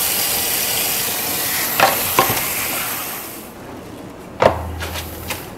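Kitchen faucet water running steadily at the sink, shut off about three and a half seconds in. A few light knocks of handling at the sink, the sharpest near the end.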